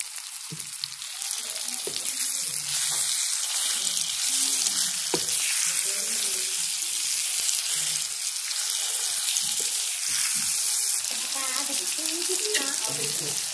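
Pieces of liver frying in hot oil with onion, tomato and green chillies, a steady sizzle that grows louder about a second in, with a spatula stirring and knocking in the pan now and then.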